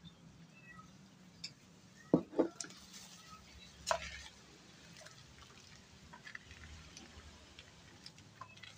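Quiet background with a few scattered sharp drip-like taps, the loudest two close together about two seconds in and another near four seconds, and faint short chirps now and then.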